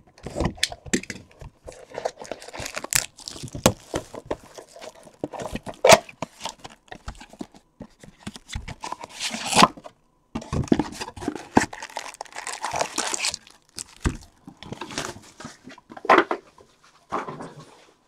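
Plastic shrink wrap crinkling and tearing as it is stripped off a sealed Bowman Draft Sapphire Edition trading card box, with sharp snaps among the rustling. After a short pause about halfway, the cardboard box and foil card packs rustle as the box is opened and the packs are taken out.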